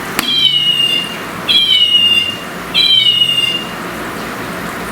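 Electronic chirping cat toy sounding three times, each a high, slightly falling electronic meow of about a second, the three calls identical.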